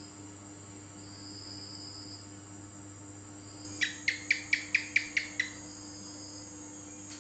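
House gecko (cicak) calling: a run of eight sharp, clicking chirps, about five a second, starting about four seconds in. Crickets trill steadily underneath.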